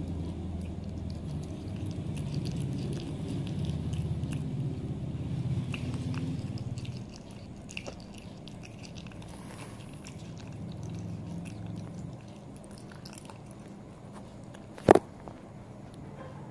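Cat licking, biting and chewing raw chicken breast close up: wet mouth sounds with many small clicks, louder for about the first seven seconds. A single sharp knock near the end.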